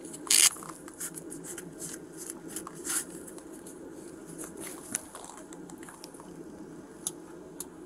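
Rustling, scraping and sharp clicks of clothing and gear rubbing against a body-worn police camera's microphone, over a steady low hum. The loudest is a short rustle about half a second in, with scattered clicks after it.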